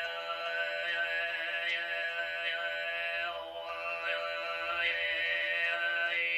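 Altai throat singing (kai) by a male voice: a steady low drone held throughout, with a high overtone melody that shifts in pitch above it. The sound thins briefly about three seconds in, then carries on.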